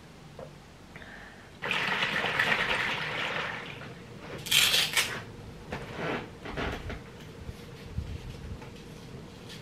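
A sudden rush of water that fades away over about two seconds, like a flush or a filling cistern. It is followed by a short sharp rasp and a few softer rustles and knocks of things being handled.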